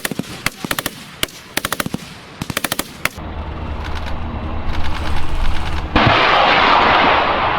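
Automatic machine-gun fire in several rapid bursts for about three seconds. A low steady rumble then builds, and about six seconds in a sudden loud rushing blast sets in and holds.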